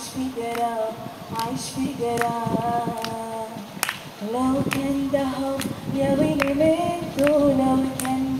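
A woman singing a slow song in long held notes over a backing track with a light beat a little faster than once a second. The singing grows louder about halfway through as a new phrase begins.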